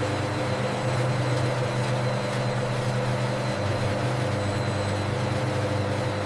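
Steady hum of running factory processing machinery: a constant low drone with a faint high whine above it.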